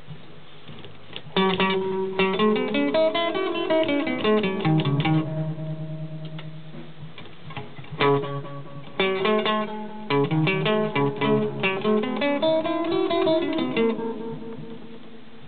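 Guitar played through a 1978 LEM Baby tape echo mixer amplifier under test: two phrases of quick plucked notes rising and falling in pitch, the first starting about a second in, the second after a short pause about halfway through.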